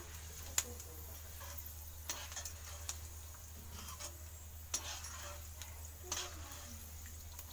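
Steel skimmer clinking and scraping against a non-stick wok while lifting fried shredded potato out of hot oil, with about five sharp clinks, and the oil sizzling faintly. A steady low hum runs underneath.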